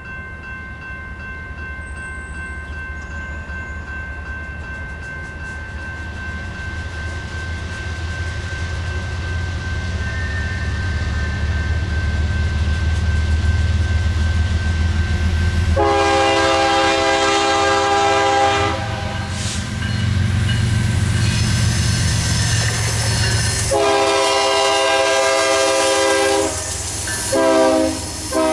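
Freight train approaching behind BNSF GE ES44DC locomotive 7789: a low diesel rumble builds steadily. About halfway in, the lead locomotive's multi-chime air horn sounds in long blasts, then a short blast, with another long blast starting at the very end.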